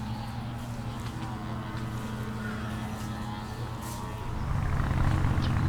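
Motor vehicle engine running with a steady low hum that grows louder about four seconds in as it passes close by.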